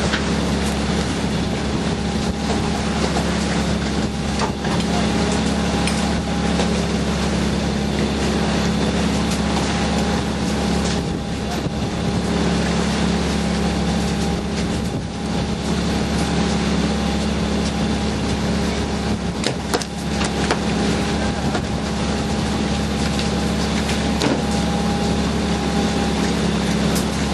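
Fishing boat's engine running steadily, a constant drone with a steady higher whine over a wash of noise, broken by a few brief knocks.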